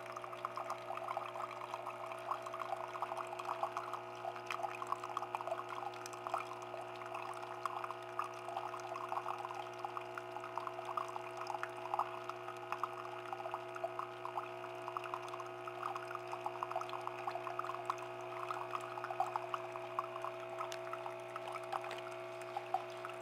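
Bosch Tassimo T20 single-serve brewer running with a steady hum while a thin stream of brewed coffee pours and splashes into a mug with a continuous crackling patter.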